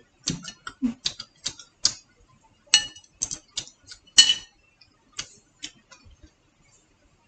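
Irregular sharp clicks and clinks of tableware as wooden chopsticks, a small glass jar and plates knock together, about fifteen in all. The two loudest, near the middle, ring briefly like glass or china.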